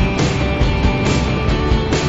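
Loud rock background music with a steady beat and guitar.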